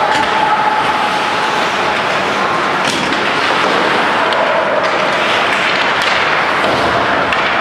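Ice hockey game in play: a steady wash of skates on ice and arena noise, with two sharp knocks about three and six seconds in.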